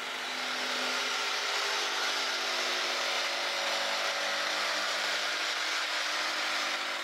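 Corded electric jigsaw running steadily with a whine, its blade cutting through a sheet of foam board. The sound builds over the first second, then holds level.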